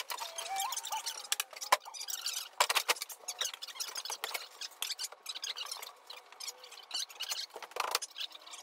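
Irregular light clicks and knocks of work in the hull, with a few faint, wavering voice-like tones near the start. All of it sounds thin and tinny, with no low end.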